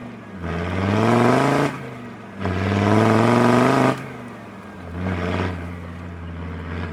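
Remapped Land Rover Defender 90 Td5's 2.5-litre five-cylinder turbodiesel revving hard twice, each time rising in pitch for about a second and a half before dropping back sharply. A shorter, lighter rev follows near the end.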